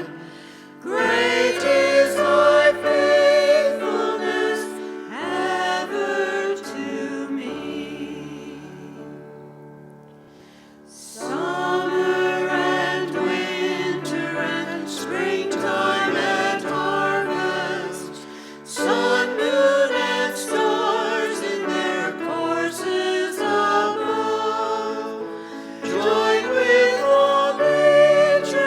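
Choir singing a hymn in long held phrases, fading to a brief pause about eight seconds in before the next verse line starts.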